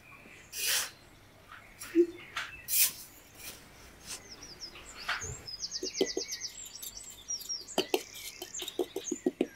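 A small steel garden trowel scraping and digging into loose sand in short separate strokes, with quick runs of light scrapes near the middle and the end. Small birds chirp in the background, with a fast high trill about halfway through.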